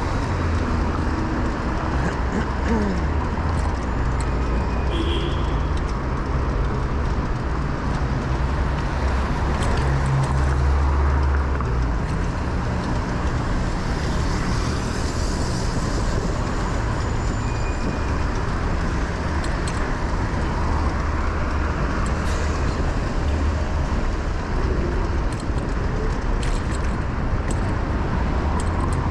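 City street traffic heard from a moving bicycle: motor vehicles running past with steady road noise and a low rumble that swells about ten seconds in.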